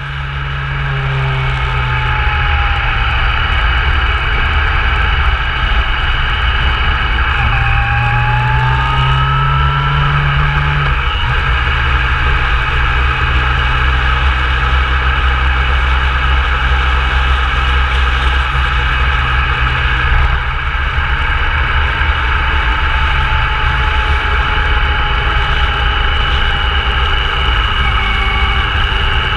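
Motorcycle engine running steadily while riding, under a dense low rumble; the engine note shifts a few times, most clearly between about 7 and 11 seconds in.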